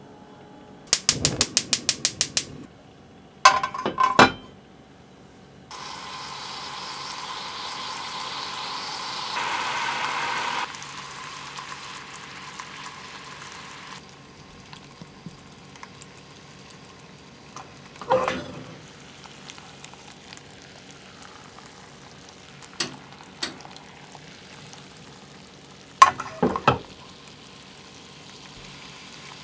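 Sugar and water boiling into caramel in a MUJI enamel storage container on a gas stove, a soft fizzing bubble with a steady hiss for several seconds. Near the start there is a quick even run of about ten clicks, then sharp knocks as the enamel container meets the stove grate, and more knocks near the end.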